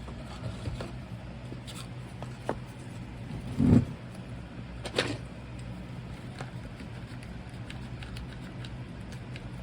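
Small knocks and scrapes of hand work on a casting mold while sprues are cut into it, with one heavier thump about 3.7 s in and a sharp click at about 5 s, over a steady low hum.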